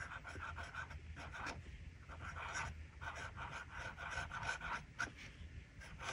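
Fountain pen's gold nib scratching faintly across notepad paper in short, irregular strokes while cursive words are written, over a steady low hum.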